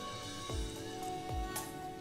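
Background music: held melodic notes over a soft low beat that falls twice.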